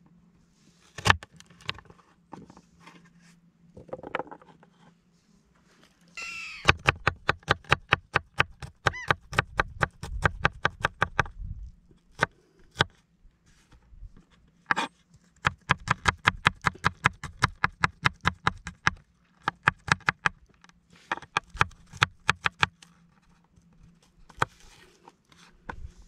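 Kitchen knife chopping carrot and garlic on a wooden cutting board: a few single knocks, then fast even runs of knife strikes, about six a second, in three bursts with pauses between.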